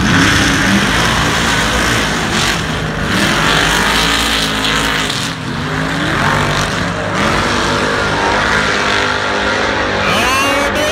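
Lifted off-road trucks' engines revving hard at full throttle, launching side by side and racing up a snow-covered hill climb. The engine noise jumps up right at the start and stays loud, rising and falling as the throttle works.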